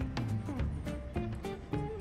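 Background music with a steady beat and a melody of pitched notes.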